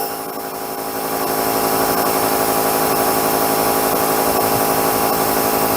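Sun Joe electric pressure washer running and spraying: a steady motor-and-pump hum over the hiss of the water jet. It dips at the start and builds back to a steady level over about a second and a half.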